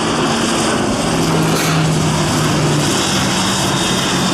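C-2 Greyhound's two Allison T56 turboprop engines running loud on the landing run: a steady low propeller drone, its pitch shifting slightly, over a constant rushing noise.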